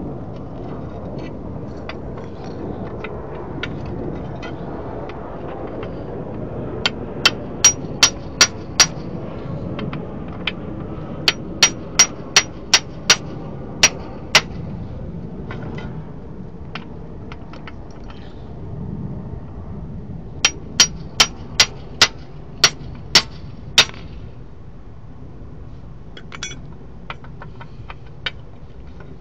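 Hammer blows on a steel drift, driving the old bushing's metal shell out of a rusty suspension arm eye. The blows come in three runs of six to nine sharp, ringing strikes, about three a second, with pauses between and a few lighter taps near the end.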